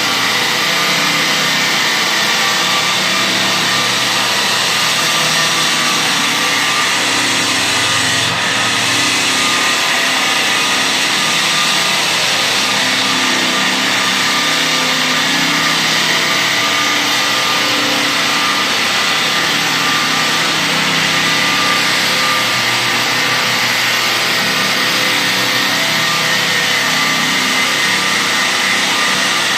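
Electric power sander running steadily under load during rough sanding, a continuous motor whine over the rasp of the abrasive.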